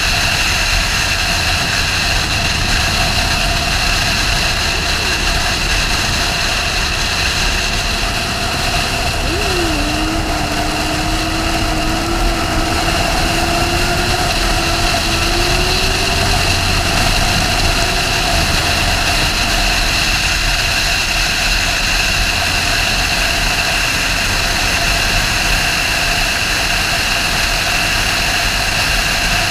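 Sportbike ridden at speed: steady engine and wind noise, with an engine note that climbs gradually about ten seconds in.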